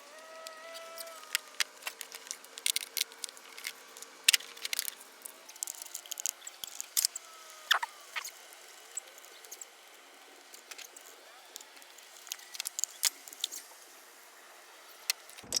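Irregular clicks and taps of metal and plastic parts being handled and worked loose by hand, with faint thin squeaks and chirps in the first half.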